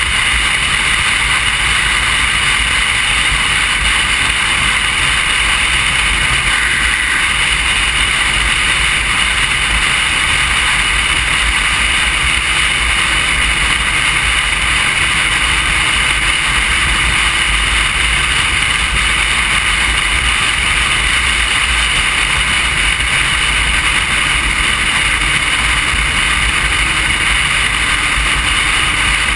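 Steady rush of wind and motorcycle engine noise, heard from on the moving motorcycle at a constant cruising speed.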